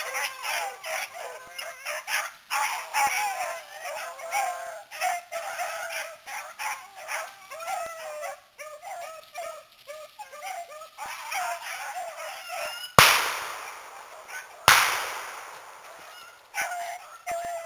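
A pack of beagles baying on a rabbit's trail, their overlapping, wavering voices running on and off. About thirteen seconds in, two shotgun blasts go off less than two seconds apart; they are the loudest sounds, each ringing out briefly.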